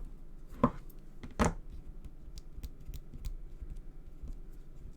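Paper and adhesive tape being handled on a craft desk: two firm taps about half a second and a second and a half in, then a run of small light clicks.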